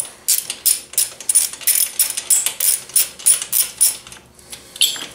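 Socket ratchet clicking as it is worked back and forth in quick strokes, about four to five clicks a second, loosening the 12 mm bolt that holds a motorcycle's horn. The clicking stops about four seconds in, with one more click near the end.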